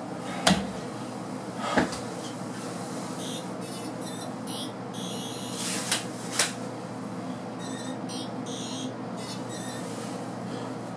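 Handling noises at a bathroom sink: four sharp knocks and clicks, the loudest near the start, with short bursts of rustling, over a steady low hum.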